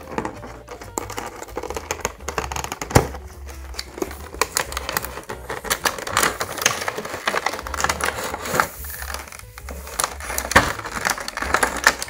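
Cardboard packaging handled and opened, and a clear plastic blister tray crinkling and crackling as it slides out of the box, with many small irregular clicks and rustles.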